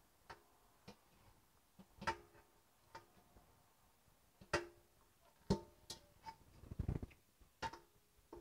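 Glass jars clinking and knocking as they are set down and shuffled on a counter: about ten sharp knocks at irregular intervals, each with a short ringing tone, and a brief low rumble about two-thirds of the way through.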